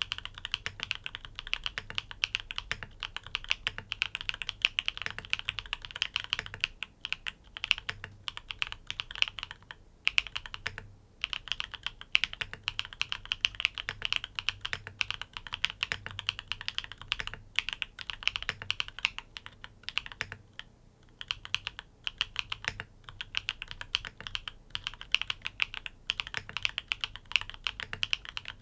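Continuous fast typing on a NEO80 mechanical keyboard with tactile switches in a sandwich mount: a dense run of key clicks, with a couple of short pauses.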